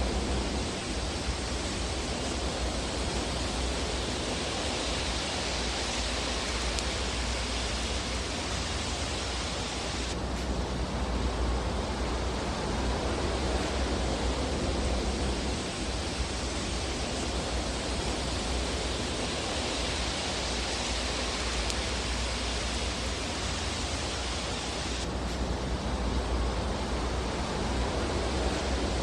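Steady rushing hiss of a fireplace fire-sound track, swelling slowly, with no distinct crackles standing out. Its tone shifts abruptly about ten seconds in and again near the end.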